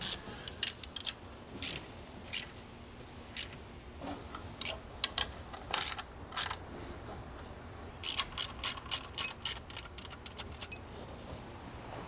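Hand ratchet clicking as it tightens the bolts of an A/C compressor and power steering bracket on a small-block Chevy V8: scattered short runs of clicks, then a quicker run of about four clicks a second toward the end.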